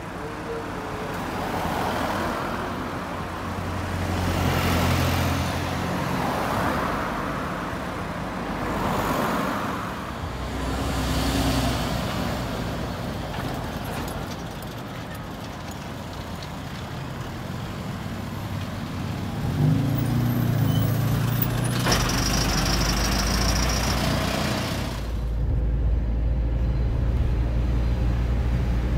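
Road traffic: motor vehicles passing one after another, then a steady low engine rumble that gets louder near the end.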